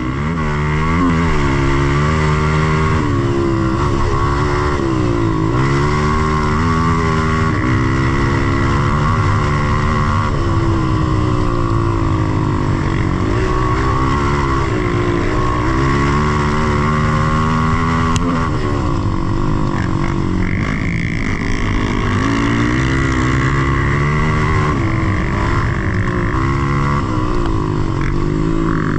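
Dirt bike engine running under way, its pitch rising and falling again and again as the throttle is opened and eased off.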